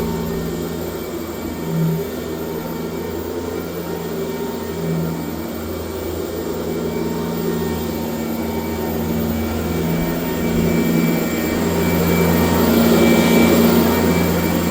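1996 Sanitaire S663 Type A upright vacuum cleaner running steadily with a constant motor hum and rushing air, getting somewhat louder in the last few seconds.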